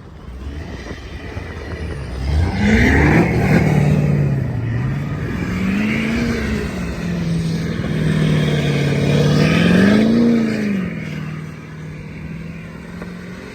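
Off-road vehicle engine revving: the pitch climbs about two seconds in, then rises and falls again around six and ten seconds in as the throttle is opened and closed.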